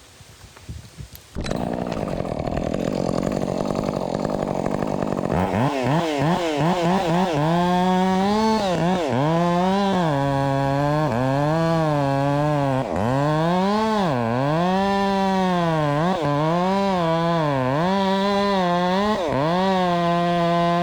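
Husqvarna two-stroke chainsaw coming in suddenly about a second and a half in. From about five seconds in it runs at high revs, its pitch dropping and recovering again and again as the chain bogs in the wood and frees up: it is cutting.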